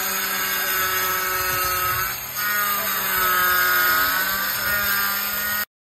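Handheld power tool, apparently an angle grinder, running and cutting a large tile with a steady motor whine. The whine dips briefly about two seconds in, wavers in pitch as it bites, and stops abruptly near the end.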